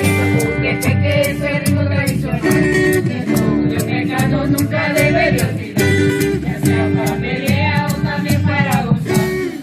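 Live traditional Salvadoran folk music: strummed acoustic guitar with bass notes, singing voices, and maracas shaken in a steady, even beat.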